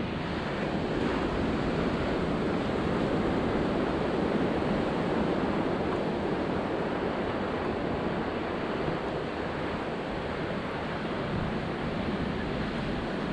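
Ocean surf breaking on the shore, a steady wash of noise with no pauses, with wind buffeting the microphone.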